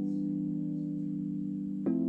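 A neo-soul keyboard chord loop playing back: held chords with no drums, with a new chord struck near the end.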